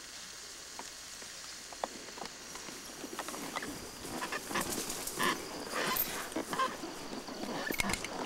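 Tall elephant grass rustling and crackling as it is brushed and trampled. A few faint clicks at first, then from a few seconds in a dense, irregular crackle that grows louder.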